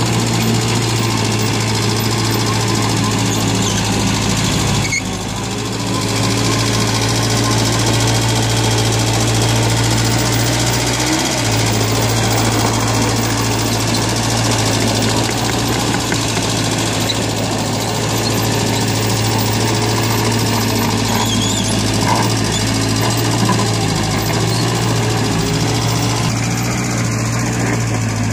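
Hanix H45A mini excavator's diesel engine running steadily as the machine digs and spreads wet mud, with a strong low hum. The level dips briefly about five seconds in.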